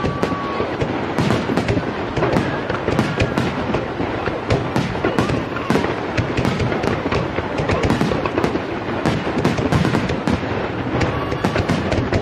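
Fireworks finale heard from close below: aerial shells bursting in a rapid, unbroken barrage of booms and crackles, many reports a second. A short whistling tone fades out about half a second in.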